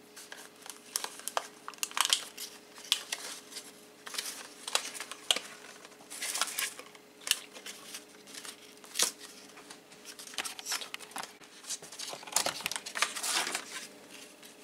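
Cardboard packaging and a plastic blister card crinkling and rustling as they are unfolded and pulled apart by hand, in irregular crackles.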